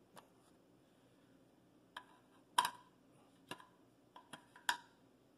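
Scattered light clicks and knocks of a 3D-printed plastic balancing cone being fitted into the centre hole of an alloy wheel. The two louder knocks come about two and a half seconds in and near the end.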